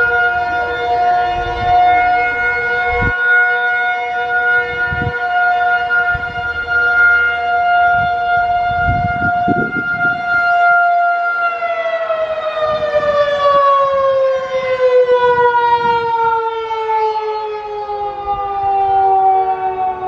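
Federal Signal 2001-130 rotating outdoor warning siren sounding its steady alert tone, rising and falling in loudness as the horn turns, then winding down with its pitch sliding lower from a little past halfway. A lower, steady tone from more distant sirens carries on underneath, and wind gusts rumble on the microphone.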